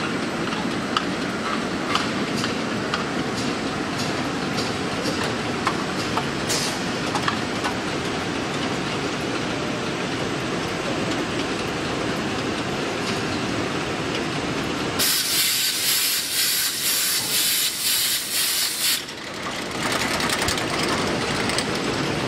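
A rotary PET bottle rinsing-filling-capping machine running, a steady mechanical clatter with light clicks of bottles and parts. A loud hiss breaks in about fifteen seconds in and lasts about four seconds.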